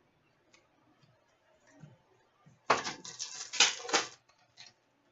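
Trading cards being handled: a few faint clicks, then a scraping, rustling burst lasting about a second and a half from a little past halfway in, as cards slide against each other and their pack wrapper.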